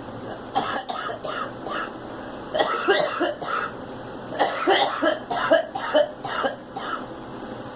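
A girl coughing in three bouts of short, repeated coughs.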